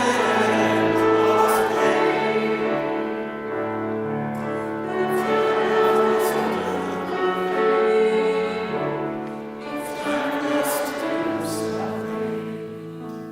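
Singing voices with musical accompaniment, on long held notes that change in steps. The music grows softer near the end.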